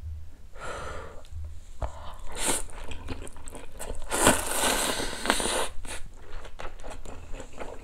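A man slurping thin noodles from seolleongtang beef-bone soup and chewing, close to the microphone. The longest and loudest slurp comes about four seconds in and lasts over a second, with shorter slurps before it and wet chewing clicks between.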